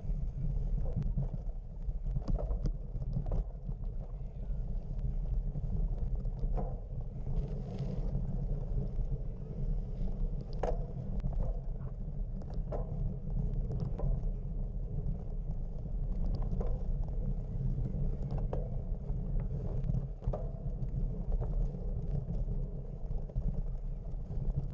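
Wind buffeting the microphone: a steady, uneven low rumble, with faint scattered clicks over it.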